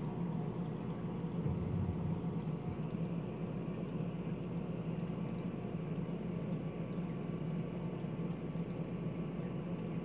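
Aquarium air pump running a sponge filter: a steady low hum with a faint hiss of bubbling air.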